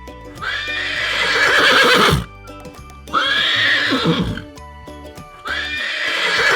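A horse whinnying three times, each neigh about one and a half seconds long, over soft children's background music.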